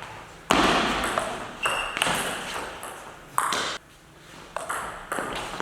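Table tennis rally: the celluloid ball clicking sharply off the bats and the table, several hits at an uneven pace, each with a short ring after it.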